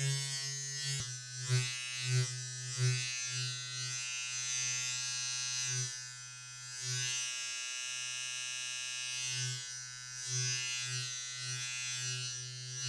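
Electric hair trimmer running with a steady buzz, its loudness swelling and dipping every second or so, with a short click about a second in.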